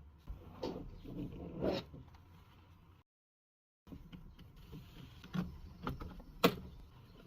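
Faint handling noises from working on a laptop: scattered light clicks and knocks of plastic and small parts being handled. The loudest, sharpest click comes about six and a half seconds in, and the sound drops out completely for under a second a little before the middle.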